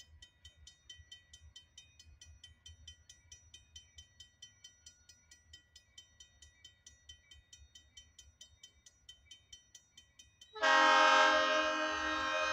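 Railroad crossing bell dinging rapidly and evenly, about four strokes a second, as the crossing signals warn. About ten seconds in, the approaching diesel locomotive's air horn blasts loudly in a multi-note chord and holds, the horn warning for the grade crossing.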